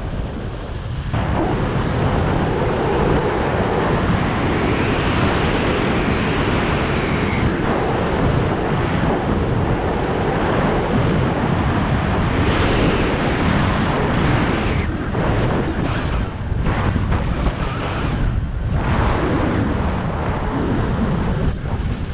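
Rushing wind noise on the microphone of a camera mounted on a hang glider in flight, a steady loud roar of airflow. It comes in suddenly about a second in.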